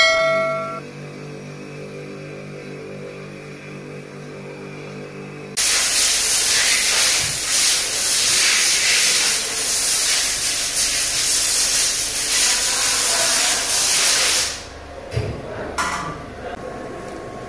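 A steady low hum, then about five seconds in a loud, even hiss of rushing air that runs for about nine seconds and cuts off suddenly. A couple of short knocks follow near the end.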